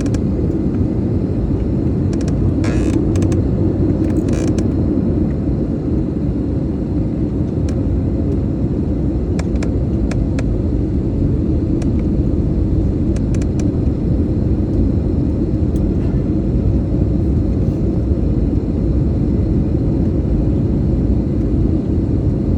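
Airliner cabin noise during descent: the steady low rumble of the engines and rushing air, with a faint steady hum and a few soft ticks.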